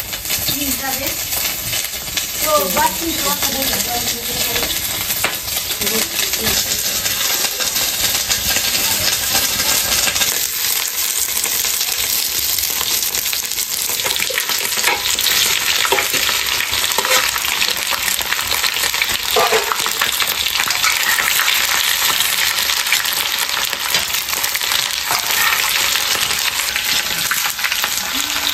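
Chunks of meat frying in hot oil in a cast-iron wok, a steady sizzle that thickens partway through, with the clink and scrape of a metal ladle stirring them.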